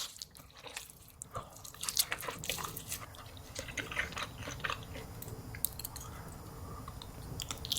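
Close-miked mukbang eating sounds of spicy ramen noodles: wet chewing and biting with many small irregular clicks and smacks.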